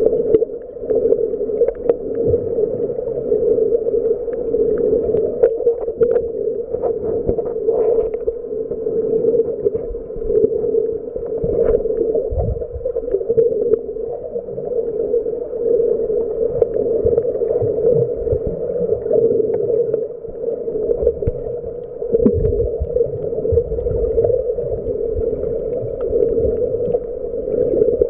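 Muffled underwater sound picked up by a camera in a waterproof housing: a steady droning hum with low rumbles that swell and fade, and scattered faint clicks.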